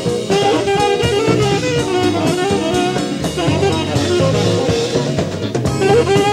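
Live band playing jazz: saxophones over electric guitar, keyboard, bass and drums, in a 1979 live club recording.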